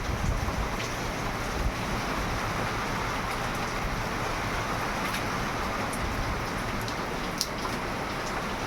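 Steady rainfall, an even hiss with scattered sharp drips and drop ticks, over a low rumble.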